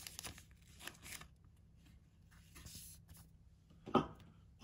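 Faint rustling and light clicks of baseball cards and plastic penny sleeves being handled, with a louder rustle about four seconds in.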